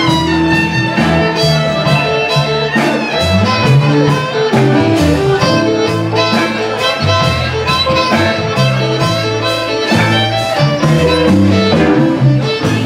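Live blues band: a fiddle bowed in long and quick phrases over guitar and an upright bass playing a stepping low line.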